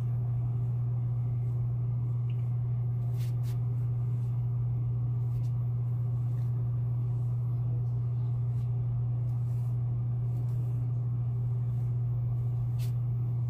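A steady low hum, unchanging in pitch and level, with a few faint clicks over it.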